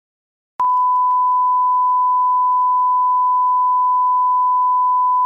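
Television test-card line-up tone, the signal a station puts out at closedown: one steady, pure beep at a single unchanging pitch. It starts with a click about half a second in, after a moment of silence.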